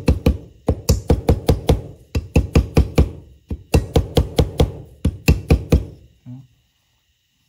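Rubber mallet tapping a mixer down into the body of a Weber 44 IDF carburetor: a quick series of sharp knocks, several a second in short runs, stopping about six seconds in.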